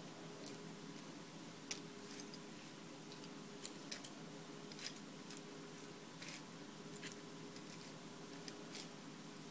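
Loose plastic LEGO bricks clicking against each other as a hand rummages through a pile of pieces: a handful of scattered sharp clicks, a quick cluster about four seconds in, over a faint steady hum.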